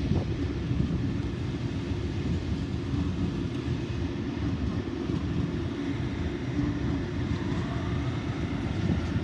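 Sydney Trains double-deck electric train running along the track, with a steady low rumble throughout and a faint rising motor whine about six seconds in. Wind buffets the microphone.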